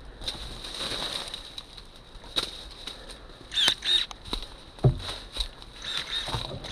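Leaves and branches rustling and twigs crackling as someone pushes through dense brush, with scattered sharp clicks and one sharp knock about five seconds in. A few short bird chirps sound about four seconds in, over a thin steady high hum.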